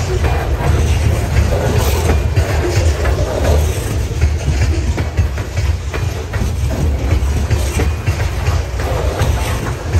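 Freight train's covered hopper cars rolling past close by: a steady deep rumble from the wheels on the rails, with scattered clacks as the wheels cross the rail joints.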